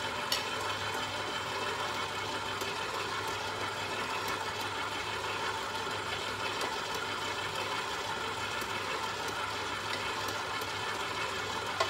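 Electric stand mixer running steadily, its motor humming as it mixes cookie dough, with a few faint ticks over it.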